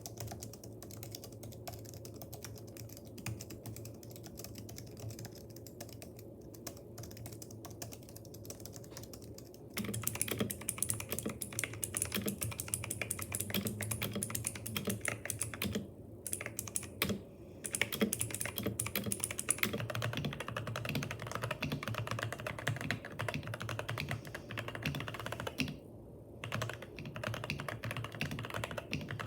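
Typing on computer keyboards, a steady patter of key clicks. About ten seconds in, the sound changes from soft, muffled keystrokes to louder, brighter clacks, as the typing moves from the $20 keyboard to the $160 one.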